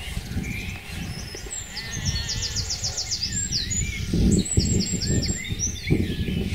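Songbirds singing in quick trills and runs of repeated high notes, over a steady low rumble. From about four seconds in there is a series of soft low thumps.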